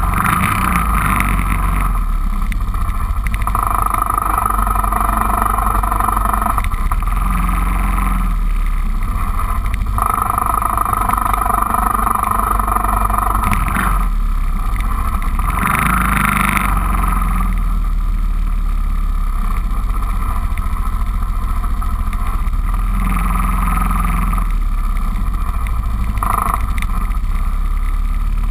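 Four-wheeler (ATV) engine running steadily as it rides across grass, its sound swelling and easing several times.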